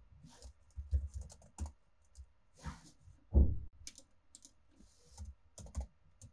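Keys tapped on a computer keyboard in scattered, irregular keystrokes, with one heavier thump about halfway through.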